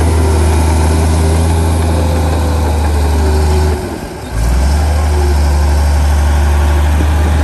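Komatsu crawler bulldozer's diesel engine running steadily as the dozer pushes soil with its blade. The sound drops away briefly about four seconds in, then picks up again.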